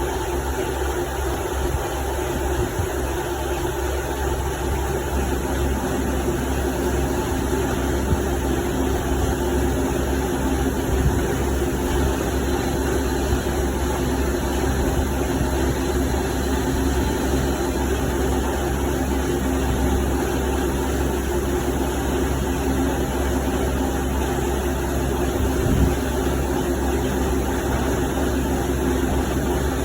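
Machine tool running steadily while cutting a 0.4 mm slot in a copper workpiece: a constant mechanical hum with several steady tones, and a couple of brief faint knocks partway through.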